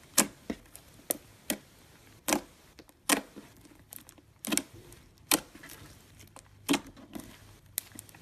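Clear slime with gold foil being pressed and poked, giving irregular sharp clicks and pops of trapped air, roughly one a second.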